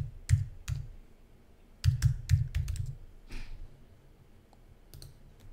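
Typing on a computer keyboard: a short run of keystrokes at the start and another about two seconds in.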